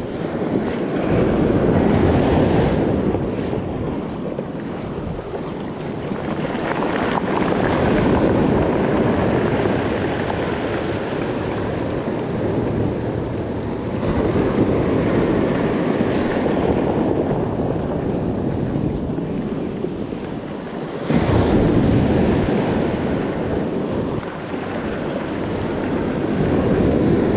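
Ocean surf washing in and breaking on the shore, swelling and ebbing every several seconds, with one wave coming in abruptly near the end. Wind buffets the microphone throughout.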